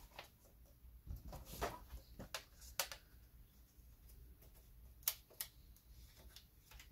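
Faint, scattered clicks and taps of hands working a ribbon cable out of a laptop motherboard connector and handling the plastic casing, the loudest click about five seconds in.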